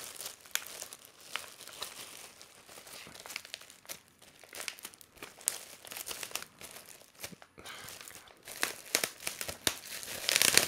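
Plastic wrapping and packing tape crinkling and tearing as taped-down layers of plastic are pulled off a package by hand, in a run of irregular crackles that grows louder near the end.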